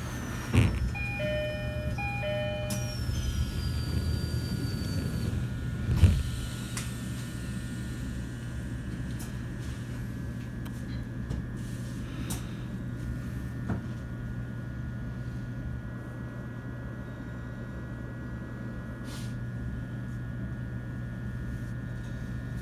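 Inside a JR East E129 series electric train at a station stop: a short two-tone door chime in the first few seconds, then two door thumps, the louder about six seconds in. Under it the train's onboard equipment and air conditioning hum steadily.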